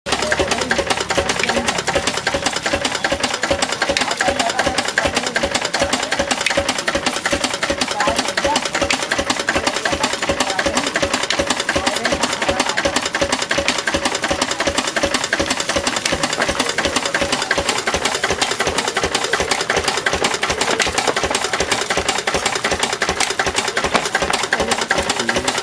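Lister-type single-cylinder stationary diesel engine running steadily with a fast, even clatter, driving a poha (flattened rice) machine by belt.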